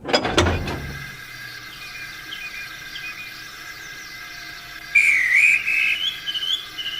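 Steam locomotive sound effects: a sudden blast with a low rumble, then a steady high whistling tone. A louder wavering whistle comes in about five seconds in and climbs in pitch toward the end.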